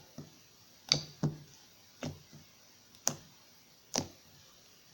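Sticky homemade slime being squeezed and pulled in the hands, giving about six sharp clicks and pops at irregular intervals.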